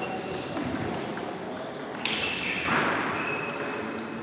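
Table tennis balls clicking on tables and bats in a busy hall as rallies go on at the surrounding tables. A sharper sound comes about two seconds in.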